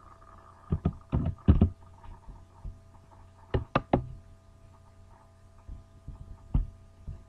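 Computer keyboard keys clicking in two short clusters, about a second in and again near the middle, then one more click later, over a faint steady electrical hum.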